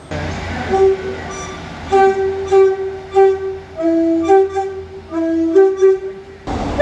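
Two-tone train horn sounding a rapid run of about ten short blasts that step between a high and a low note, over the steady hum of the train's engine. A rush of passing-train noise comes near the end.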